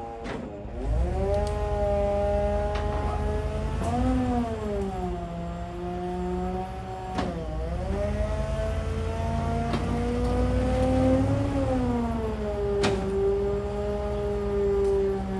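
Heavy engine running with its speed rising and sagging several times, sharp dips in pitch about half a second in and about seven seconds in, with a few sharp knocks.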